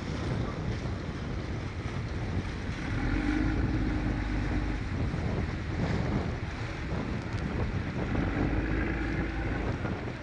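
Small steel workboat's engine running under load as it tows a steel pontoon on a rope, with wind buffeting the microphone and water churning. Twice a steady droning tone rises above the mix for a second or two, about three seconds in and again near the end.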